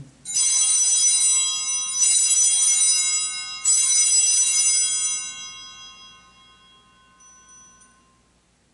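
Altar bells rung three times, about two seconds apart, with a bright ring that fades away slowly after the third. They signal the elevation of the consecrated host at Mass.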